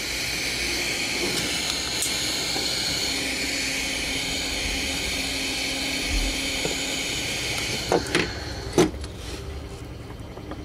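Heat gun blowing hot air in a steady hiss while shrinking heat-shrink tubing over a cable. Two sharp clicks come about eight seconds in, and then the blowing stops.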